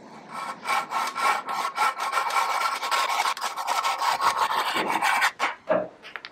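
Fine-toothed hand saw cutting through a green tree branch clamped in a vise, in quick, steady back-and-forth strokes. The strokes stop a second before the end as the cut goes through, followed by a few light knocks.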